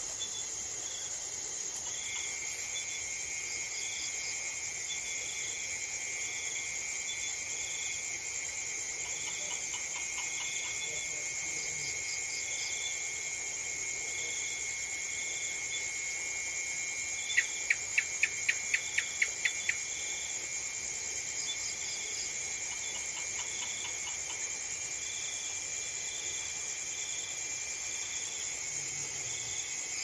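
Evening chorus of crickets and other insects: a steady high-pitched buzz, a second trill joining about two seconds in, and short chirps repeating a little faster than once a second. About two-thirds through, a run of about nine sharp, loud clicking notes, roughly four a second, stands out above the chorus.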